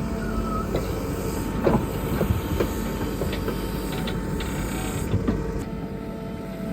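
Backhoe's diesel engine running steadily, with several sharp metal clanks and knocks, a cluster about two seconds in and another near five seconds.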